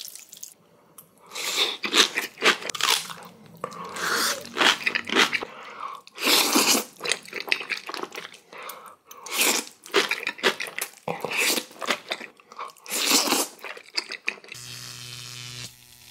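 Close-miked eating: a person biting into and chewing crunchy spicy kimchi, crunch after crunch. A steady low hum takes over near the end.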